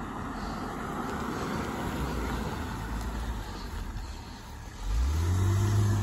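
Police Dodge Durango driving past, tyres and engine rumbling on the road. About five seconds in, a loud low engine note rises quickly in pitch and holds steady as the vehicle pulls away.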